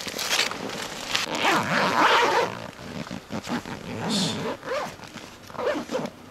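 A zipper being pulled in several irregular rasping strokes, the longest about a second and a half in, with shorter pulls after it.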